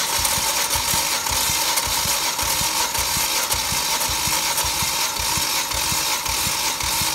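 Volvo 2.4-litre five-cylinder B5244S petrol engine turned over on its starter during a compression test on one cylinder. It makes a loud steady whirr with uneven low thumps several times a second.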